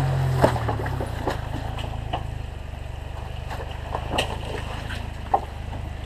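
Jeep Wrangler's engine running at a low, steady crawl as it comes down rock ledges in a creek bed, a little louder in the first second. There are a few scattered knocks along the way.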